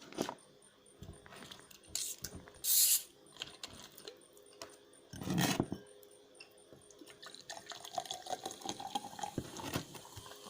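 Close-miked ASMR handling of instant noodles: scattered clicks and knocks, a short hiss about two and a half seconds in, a fuller burst of noise around five seconds, and water sounds.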